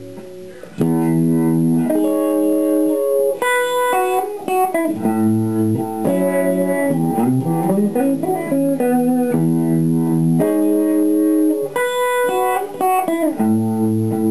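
1982 Fender Stratocaster on its middle single-coil pickup, played clean through a Danelectro Cool Cat analog vibe pedal into a silverface Fender Princeton Reverb: chords starting about a second in, with a run of sliding notes in the middle.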